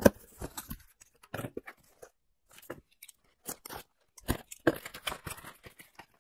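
Cardboard shipping box being opened and handled: flaps pushed back and a smaller cardboard box pulled out, with irregular scrapes, rustles and knocks. A sharp knock comes right at the start, and a busier run of handling noise about four seconds in.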